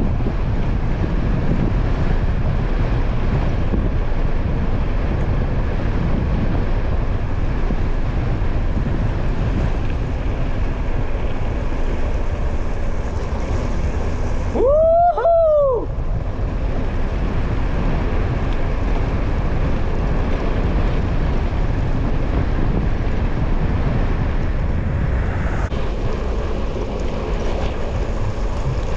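Wind buffeting the microphone while cycling fast downhill, a steady loud rumble. About halfway through, one long whooping shout rises and falls in pitch.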